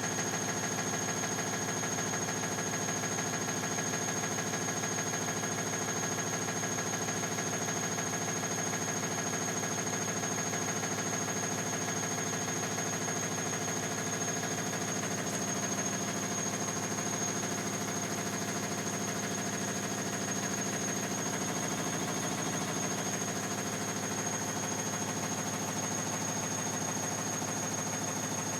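Bosch Classixx 6 Vario Perfect washing machine spinning an out-of-balance load: a steady drum-and-motor drone with a thin high whine over it.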